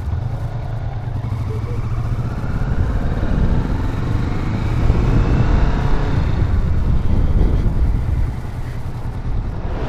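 Honda CB500F parallel-twin engine pulling under acceleration, rising in pitch, over a steady low rumble of wind and road noise.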